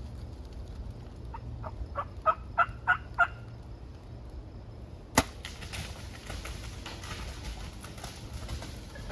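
Wild turkey gobbler gobbling: a quick, rattling run of notes about a second and a half in, growing louder toward its end. About five seconds in, a single sharp snap.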